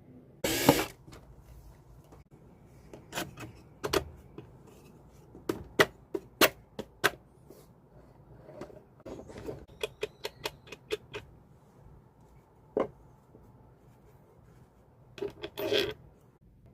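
Hand tools and small parts being handled at a workbench: scattered sharp clicks and taps, a quick run of ticks midway, and a short scrape near the start and another near the end.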